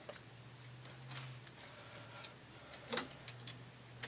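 Scattered light metallic clicks and taps, irregularly spaced with the sharpest about three seconds in, as a screw and socket extension are worked against metal parts, over a faint low steady hum.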